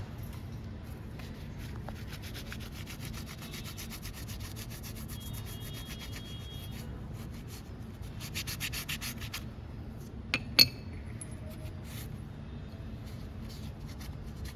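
Rapid back-and-forth rubbing of a cloth wiping a motorcycle rear disc brake part, in two spells, the second shorter and louder. A sharp click about ten and a half seconds in.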